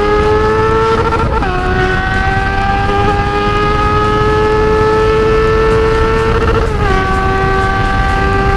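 Honda CB600F Hornet's inline-four running hard through a 4-into-1 open exhaust, its pitch climbing steadily under acceleration and dropping sharply twice as the rider shifts up a gear, about one and a half seconds in and near seven seconds. Wind rush on the helmet microphone sits underneath.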